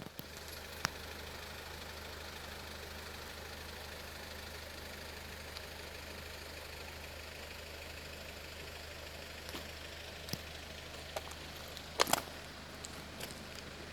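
A vehicle engine running with a steady low hum, broken by a few sharp knocks, the loudest a pair about twelve seconds in.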